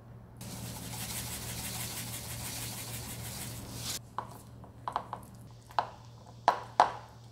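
Roasted sesame seeds shaken from a plastic container onto sauce, a dense rattling hiss for about three and a half seconds. Then a metal spoon stirs thick chili-paste sauce, with a few sharp scrapes and clacks against the bowl.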